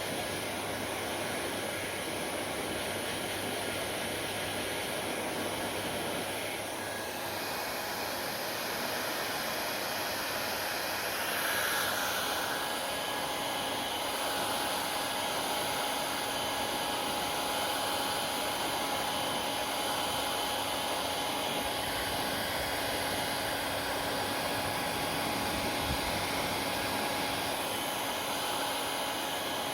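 Hair dryer blowing steadily: an even rushing hiss with faint whining tones, shifting slightly about 7 and 12 seconds in.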